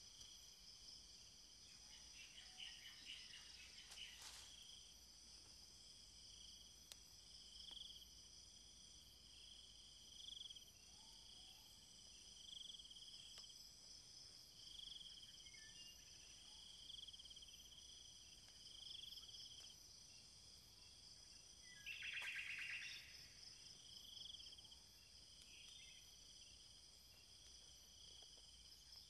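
Faint night-time insect chorus: a steady high trilling, with a chirp repeating about every two seconds, and two brief louder buzzy calls, one a few seconds in and one about three quarters of the way through.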